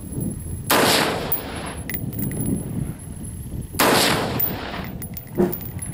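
Two shots from a .223 AR-15 rifle, about three seconds apart, each trailing off in echo, fired while sighting in a new scope.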